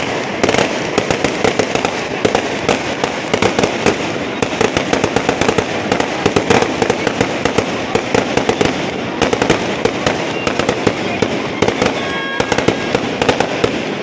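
Fireworks going off overhead: a dense, unbroken run of irregular crackling bangs and pops.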